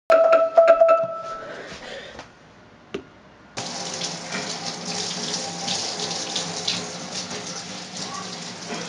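A handheld shower head spraying water onto hair over a bathtub, rinsing bleach out of the hair. The water starts suddenly about three and a half seconds in and then runs steadily. It follows a few loud clicks and a short tone in the first two seconds.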